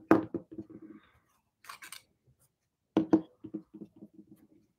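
Hard objects, likely the fountain pens, being set down on a hard surface: two clatters about three seconds apart, each trailing off in a quick run of fading taps, with a brief rustle of handling between them.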